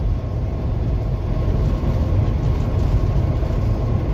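Steady engine and road noise inside a semi truck's cab at highway speed: an even low rumble with a faint steady whine above it.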